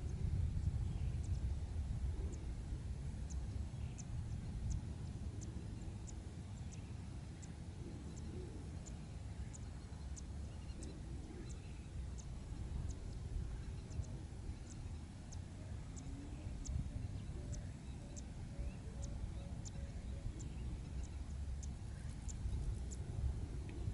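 Wind rumbling on the microphone over open grassland, with a faint high ticking call repeating about one and a half times a second.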